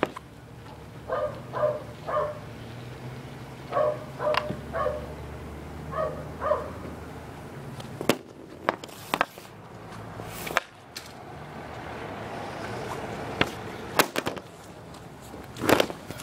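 Easton RS II hockey stick striking and sliding a puck on a plastic shooting pad, with sharp clacks of shots in the second half. In the first half, short pitched calls come in groups of two or three, and a last knock near the end is the camera being handled.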